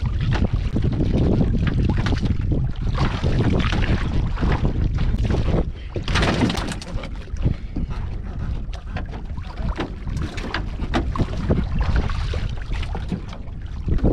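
Wind buffeting the microphone in a steady low rumble over water around a small wooden boat, with scattered knocks and splashes as a large singara catfish is hauled from the water into the boat; a brighter splashing rush comes about six seconds in.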